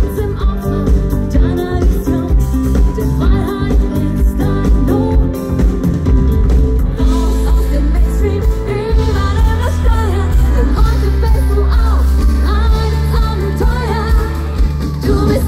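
Live schlager pop music from a band with a steady beat and strong bass, a singing voice coming to the fore about halfway through.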